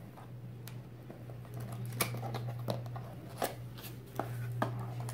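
Light cardboard gift box opened by hand: a string of sharp taps, clicks and scrapes as the lid and flaps are pulled open, about six in a few seconds, over a steady low hum.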